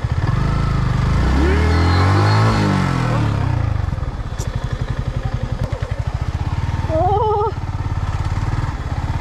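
Motorcycle engine running with a steady, fast low beat. From about one to three and a half seconds in, a louder engine note swells with its pitch shifting.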